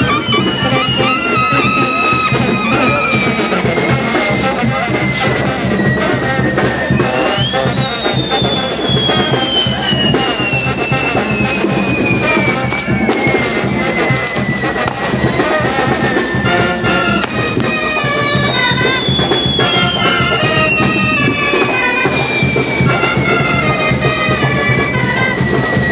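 Brass band music playing over fireworks burning close by. Three long firework whistles come one after another, each starting high and sliding slowly down in pitch over several seconds.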